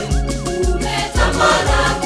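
Choir singing a Swahili gospel song over a keyboard backing with a steady bass beat, about two beats a second.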